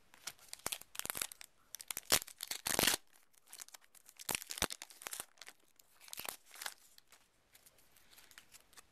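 Foil wrapper of a Yu-Gi-Oh booster pack being torn open and crinkled, with the loudest tearing about two to three seconds in, followed by scattered rustles and clicks of cards being handled.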